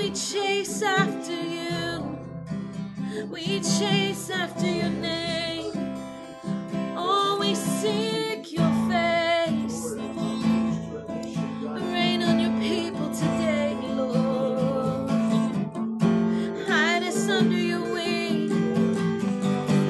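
Acoustic guitar strummed in steady chords under a woman singing a slow worship song with vibrato.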